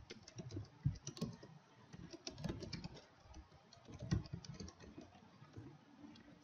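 Computer keyboard being typed on: a quick, uneven run of key clicks as a phrase is typed out.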